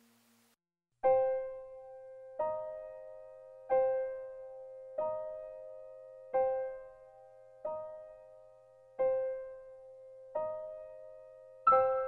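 Background piano music, slow and soft. A chord sounds about every second and a half over the same repeated note, each one ringing down, and quicker notes start near the end.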